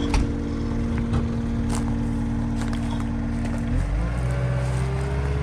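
A construction machine's diesel engine running steadily, with a few sharp metallic clanks. A little under four seconds in, the engine note shifts and a higher tone slowly rises.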